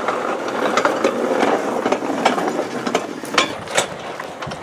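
Irregular metal clattering and clicking from a home-made narrow-gauge railway wagon loaded with wheelbarrows as it is handled and pushed along the rails. A couple of sharper clanks come about three and a half seconds in.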